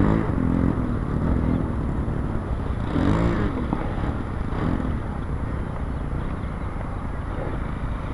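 Radio-controlled model Cessna's engine running steadily at takeoff power as the model takes off.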